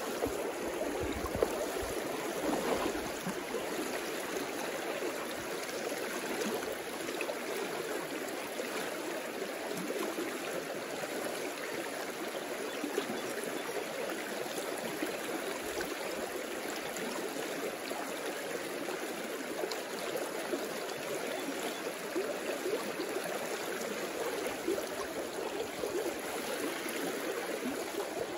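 Shallow river riffle rushing steadily over a stony bottom, the river running low. A single sharp click sounds about a second and a half in.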